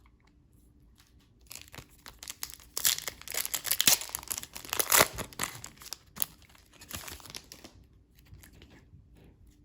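A trading-card pack wrapper being torn open and crinkled by hand: a run of crackling and tearing, loudest in the middle, then dying away to scattered crinkles.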